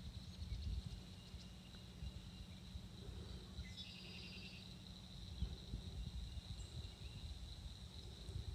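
Faint, steady high-pitched insect buzz at a lily-pad pond, with a brief rapid trill about four seconds in, over an uneven low rumble.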